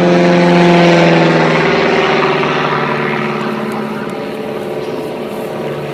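Pitts Special S1-S biplane's 180-horsepower four-cylinder engine and propeller running at high power, heard from on board. The note is loudest about a second in, then fades gradually as the aircraft climbs toward the vertical.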